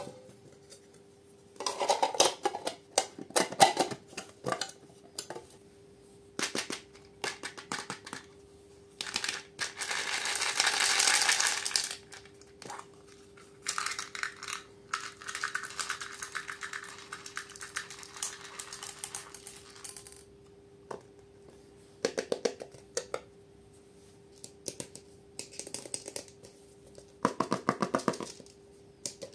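Hands handling small plastic slime tubs and lids: scattered clicks and taps, with a stretch of rustling about ten seconds in and bursts of quick clicking near the end, over a faint steady hum.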